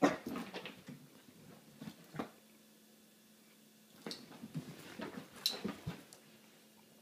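A frightened Havanese puppy whimpering in short scattered bursts, a cluster at the start, a couple around two seconds in, and more between about four and six seconds; the dog is scared of the apple being held toward it.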